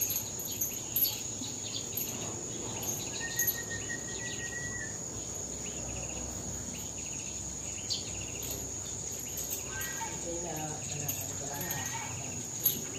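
Insects droning steadily at a high pitch, with a few bird chirps and several short sharp knocks.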